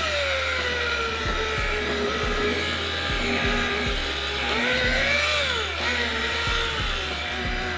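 Makita rotary polisher running with a foam pad on a carbon fibre panel, buffing in the extra-fine finishing compound. Its motor whine sinks in pitch at the start, dips and recovers about five seconds in, then holds steady. Background music with a steady beat plays underneath.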